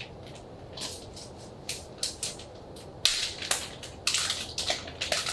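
Product packaging being handled and opened by hand: scattered crinkles and rustles, growing into a dense run of crackling about three seconds in.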